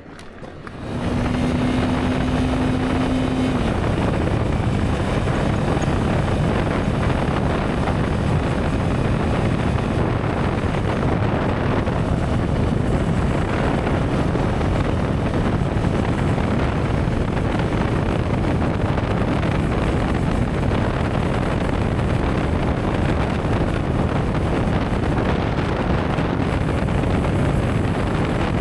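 Motorcycle pulling away and riding along: engine, road and wind noise rushing over the rider-mounted microphone. It swells about a second in, then holds steady, with a steady hum over it for the first few seconds.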